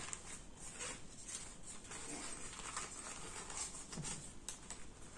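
Rustling and light clicks from a small fabric cosmetic pouch being turned over and handled, in short irregular strokes.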